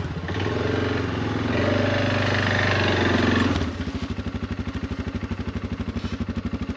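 A small vehicle's engine running under power, then dropping to a steady, pulsing idle about three and a half seconds in.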